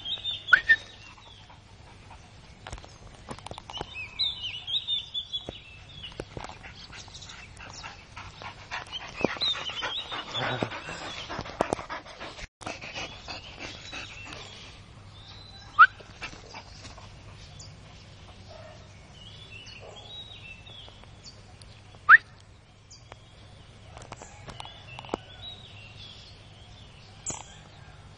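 A Boxer dog whining in short high-pitched runs, with two sharp rising yelps about six seconds apart that are the loudest sounds.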